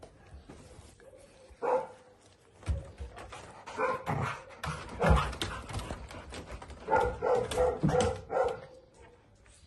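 Dogs barking: scattered single barks, then a quick run of about six barks near the end.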